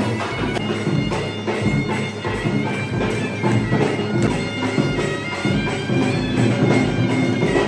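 Traditional Sri Lankan music: a shrill, droning reed pipe playing over steady, evenly spaced drumbeats.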